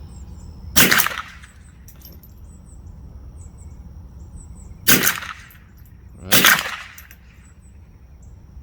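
Three shots from a Savage Model 6D .22 rifle firing Remington hollow-point rounds. The first comes about a second in, and the last two come about a second and a half apart, each with a short echo after it.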